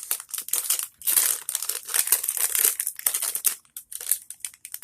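Plastic candy wrapper of a SweeTARTS Ropes pack crinkling as it is handled and opened, in dense irregular crackles that thin out near the end.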